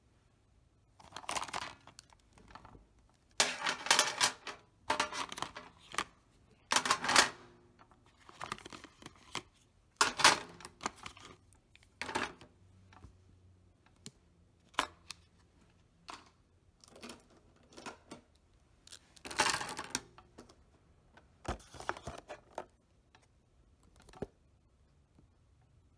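Plastic paint markers clattering and clicking as they are picked up and dropped into a tin lunchbox, in irregular bursts of knocks and rattles with short pauses between.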